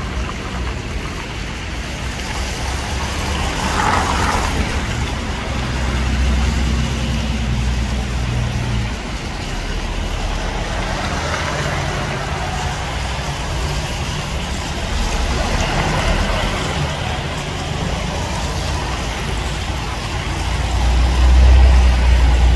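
City buses and cars passing on a street: a steady traffic rumble with a low engine hum that swells as each vehicle goes by, loudest as a bus passes close near the end.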